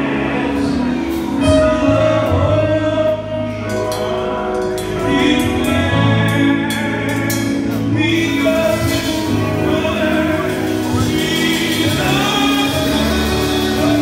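Live gospel music: singing over a drum kit, with drum and cymbal strikes running through.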